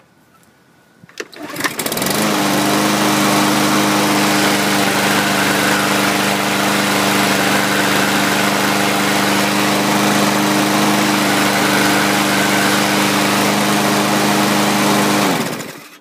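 Briggs & Stratton engine on a 2015 Craftsman push mower, recoil pull-started with its automatic choke, catching about two seconds in and running steadily at full speed, then shut off near the end. It runs evenly on a fresh spark plug, which cured its rough running.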